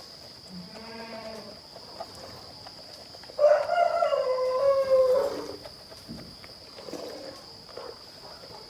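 Goat bleating: a short, fainter call about a second in, then one louder, drawn-out bleat of nearly two seconds about three and a half seconds in, sliding slightly down in pitch.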